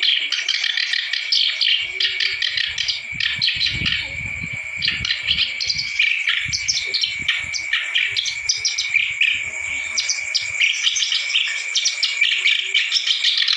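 Kerak basi (reed warbler) singing continuously: a fast, unbroken run of chattering, chirping notes. A low rumble sits under the song for a few seconds in the middle.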